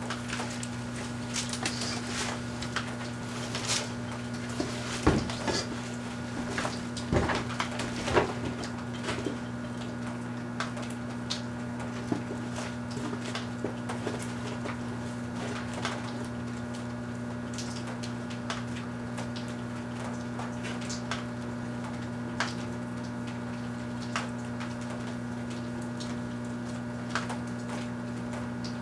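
Large Kenmore microwave oven running with a steady low hum, while sharp crackles and pops come from the Christmas tree and its wrapped string lights being microwaved inside. The pops are thickest in the first several seconds and then thin out to occasional single snaps.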